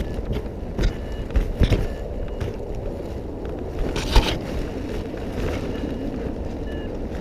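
Wind rumbling on the microphone, with a few knocks and handling bumps; the loudest bump is about four seconds in.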